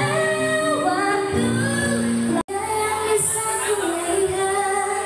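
Teenage girl singing a pop ballad into a microphone over an instrumental accompaniment. The recording breaks off for an instant about halfway through, and the singing resumes in a different song.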